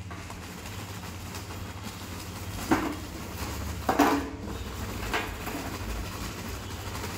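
Lumps of wood charcoal tipped from a plastic sack clatter into a sheet-metal barbecue box while the sack rustles. There are two sharper clatters about three and four seconds in.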